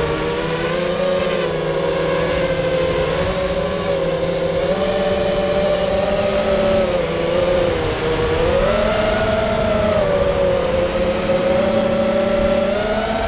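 FPV quadcopter's brushless motors and propellers whining in flight, the pitch rising and falling with the throttle, dipping briefly about eight seconds in before climbing again.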